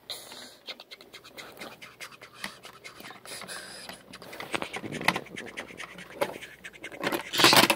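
Plastic Thomas the Tank Engine toy being pushed and handled on a plastic tray, making a run of scratchy clicks and rubbing. The rubbing is loudest near the end.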